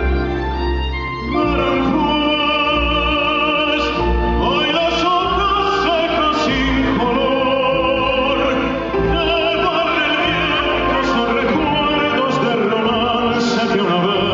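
A male pop-opera singer singing live into a microphone with strong vibrato, backed by a band with piano, heard through the hall's PA.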